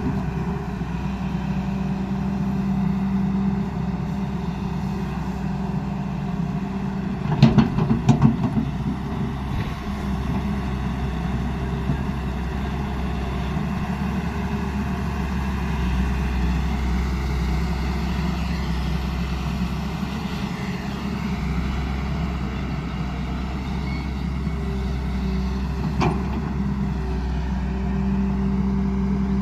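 Hyundai R210 Smart Plus excavator's diesel engine running steadily, with a short burst of clanking about seven to eight seconds in and a single knock near the end.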